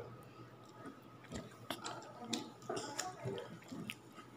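Close-up eating sounds as curry and rice are chewed: scattered soft, wet mouth clicks and smacks.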